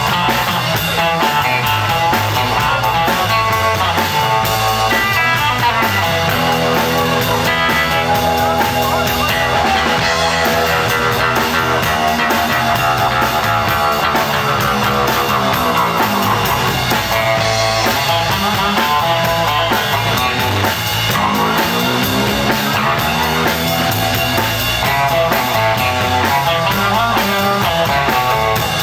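Live 1950s-style electric blues band playing: electric guitars over a drum kit, with a steady groove and bending lead notes.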